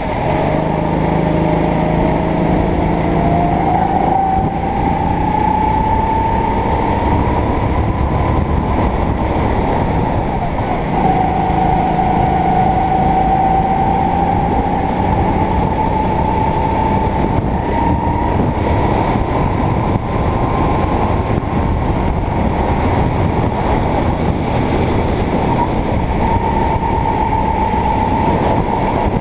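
Sodi kart's engine running hard under the onboard camera. The engine note climbs as the kart accelerates over the first several seconds, drops about eleven seconds in as the driver lifts for a corner, then climbs slowly again.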